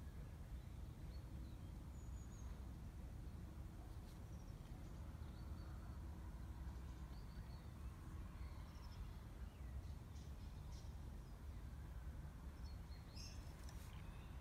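Quiet outdoor ambience: a steady low rumble with faint, scattered bird chirps, a few more of them close together near the end.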